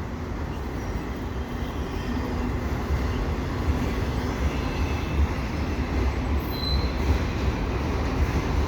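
Auto rack cars of a slow-moving CN freight train rolling past with a steady low rumble of wheels on rail. A short high wheel squeal about two-thirds of the way in.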